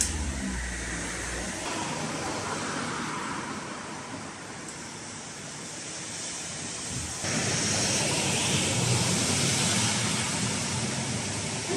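Steady rushing outdoor noise, which jumps louder and brighter about seven seconds in.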